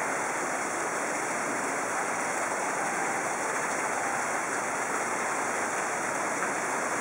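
Steady rush of running water, with no change in level throughout.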